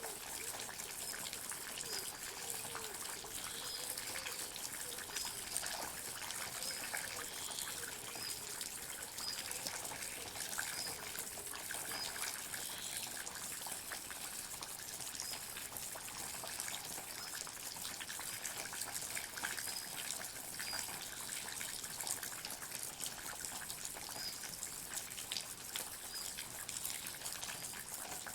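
Water dripping and trickling in a forest: a steady, dense patter of many small drops at an even level. A faint, short high chirp repeats about once a second.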